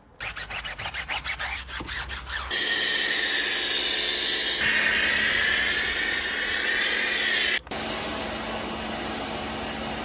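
A wash mitt scrubbing soapy car paint in quick rhythmic strokes, then a pressure washer running with its foam cannon spraying snow foam in a loud steady hiss over a low hum. After a short break near the end, a quieter steady spray of water follows.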